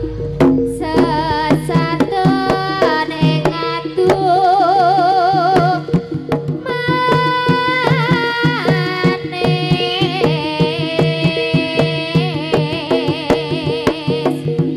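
Live East Javanese jaranan music: hand drums and percussion keep a dense, busy beat under a held melody line that wavers and slides in pitch, over a steady drone.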